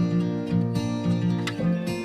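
Instrumental music led by a strummed acoustic guitar, with chords changing every second or so.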